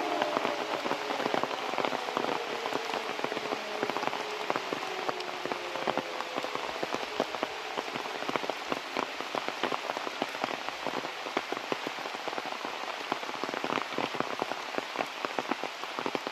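Rain falling steadily, a dense run of sharp drop ticks. In the first second or so the falling tone of a civil-defence warning siren winding down at the end of its test dies away.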